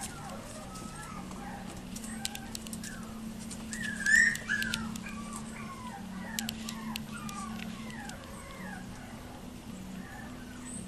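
Yorkiepoo puppies, about seven weeks old, whimpering and yipping at play in many short, high, falling squeaks, the loudest a sharp squeal about four seconds in. Scattered light clicks and taps run between them.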